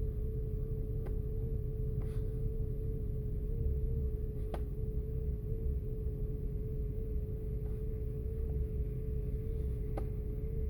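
2005 Audi A8's 6.0 W12 engine running with an uneven low rumble and a steady mid-pitched whine over it, plus a few sharp ticks. The engine is misfiring on several cylinders in both banks.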